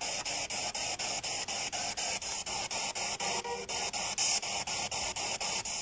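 Spirit box, a radio sweeping through stations, giving out steady static chopped about five times a second as it jumps from channel to channel. There is a brief snatch of broadcast sound about three and a half seconds in.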